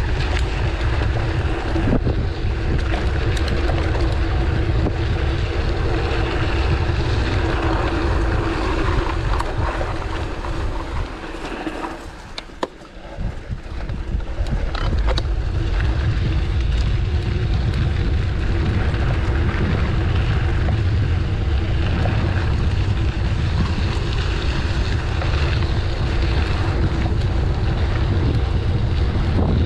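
Wind buffeting the microphone of a camera on a moving bicycle, a steady low rumble that eases for a moment near the middle before returning.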